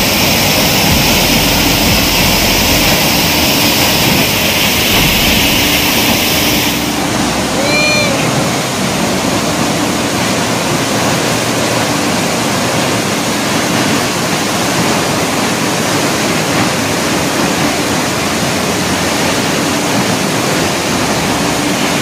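Steady rushing of Changey Falls, a tall waterfall pouring into its pool. About a third of the way in the sound changes abruptly as the high hiss drops out, and a brief high chirp follows about a second later.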